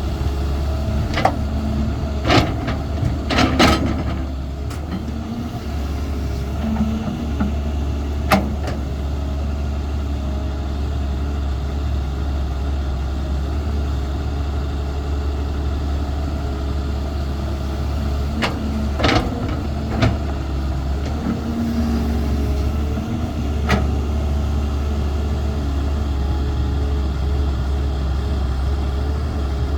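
Caterpillar 320 excavator's diesel engine running steadily under work, with sharp knocks and clunks scattered through: a cluster about two to four seconds in, a single one near eight seconds, and several more around nineteen to twenty-four seconds.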